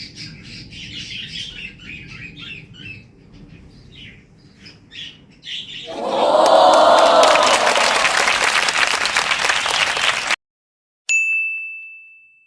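Birds chirping with many short calls. About six seconds in, a loud, dense burst of noise takes over and cuts off abruptly after about four seconds. After a moment of silence, a single bell-like ding rings and fades away.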